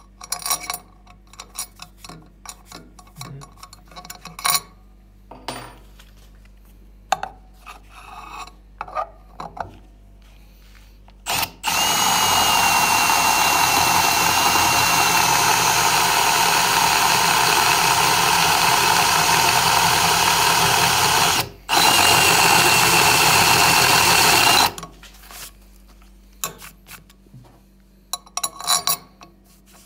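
Light clicks and taps of handling, then a power drill running a large twist drill bit into a small hole in a steel plate, cutting a countersink chamfer. The drill runs with a steady whine for about thirteen seconds, stopping briefly once near the end, and is followed by more light clicks.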